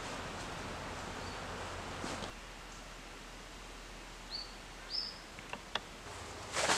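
Woodland ambience: a steady background hiss that drops lower about a third of the way in, with a few short, high bird chirps and a couple of faint ticks. Rustling sets in near the end.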